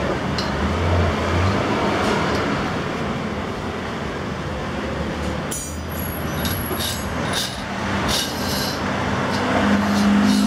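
Steady rumble of road traffic, a heavy vehicle's engine running and passing. A few light metal clinks of motorcycle fork parts being handled come about halfway through.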